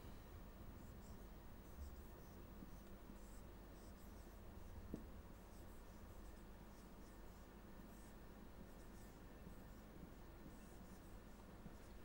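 Marker pen writing on a whiteboard: faint, irregular squeaky strokes, with a small tap about five seconds in.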